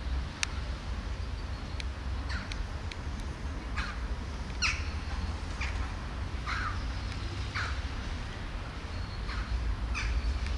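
Birds calling: short, harsh calls, several falling in pitch, repeated about once a second over a low steady rumble.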